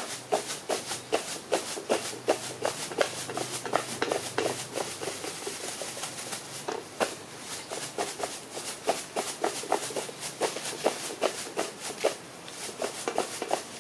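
Quick, irregular clicks and taps, several a second, from baby macaques chewing leaves and stalks and scrambling about on a woven plastic mat.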